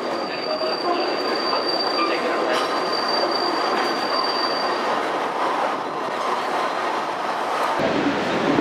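Kurobe Gorge Railway narrow-gauge trolley train running on its track, heard from aboard, with a thin, steady high wheel squeal that dies away about five seconds in. Near the end the low rumble grows and the train comes level with the station sign.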